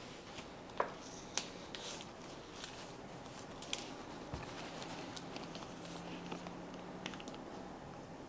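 Faint scattered clicks and soft rustles of hands pressing a strip of paper masking tape onto a plastic zipper freezer bag, with a pen starting to write on the tape near the end.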